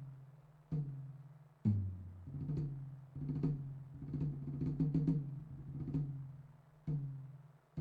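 A low-pitched drum struck singly about once a second, each hit ringing on with a low tone, with a quicker run of hits in the middle.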